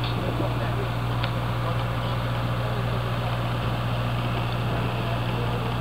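A wooden cruise boat's engine running with a steady low hum, unchanging throughout.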